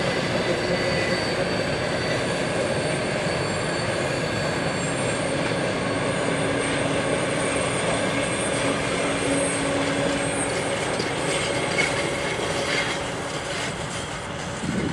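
A long freight train hauled by a twin-section electric locomotive rolling along curved track: a steady rumble of wheels and wagons with thin, high wheel squeal, easing off a little near the end.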